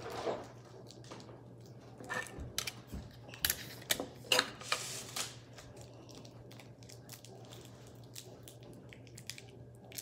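Handling noises: a cluster of sharp clicks and rustles between about two and five seconds in, over a faint steady low hum.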